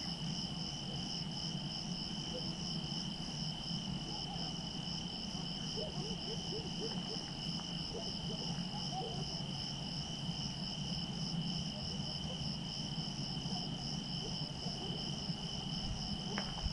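Crickets trilling at night: one steady high trill and a higher one pulsing evenly a few times a second, over a steady low hum.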